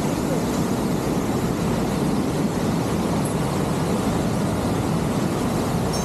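Waterfall running at heavy flow, swollen with storm runoff: a loud, steady rushing of falling water that does not vary.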